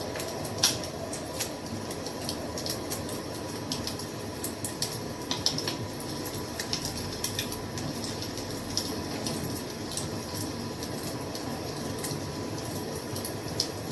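Wood fire crackling: a steady low rush of burning, with irregular sharp pops and snaps. The loudest pop comes just under a second in.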